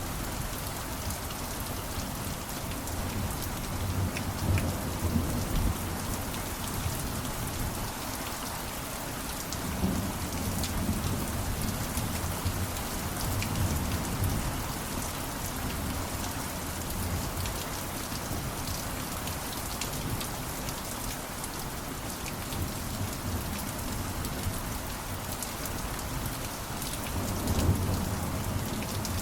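Steady heavy rain falling, with low rumbles of thunder rolling in and out a few times.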